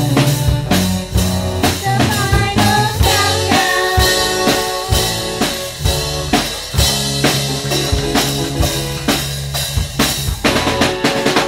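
Live rock band playing: drum kit keeping a steady beat under bass and electric guitar through small PA speakers, with a lead line sliding up in pitch two to four seconds in. Near the end the bass drops out and the drums hit faster.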